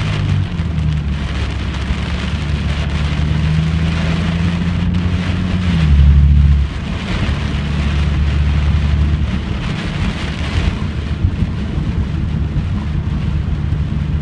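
Heavy wind-driven rain pelting a vehicle in the rear flank downdraft of a tornadic storm, coming in surging waves over a steady low rumble. A louder low rumble swells briefly about six seconds in.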